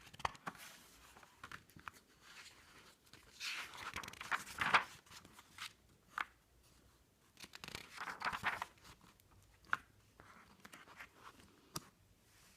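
Paper rustling with a few soft clicks, typical of a picture book being handled and its pages turned, in a small room. The two loudest spells of rustling come about four seconds in and again about eight seconds in.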